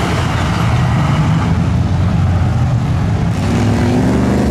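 Engines of lifted mud-bog trucks running under throttle as they push through a mud pit. The sound changes abruptly to another truck's engine about three seconds in.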